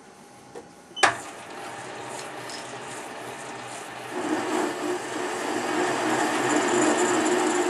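Metal lathe starting up: a sharp click about a second in, then the chuck spinning with a steady mechanical running noise. It gets louder with a steady hum from about four seconds in.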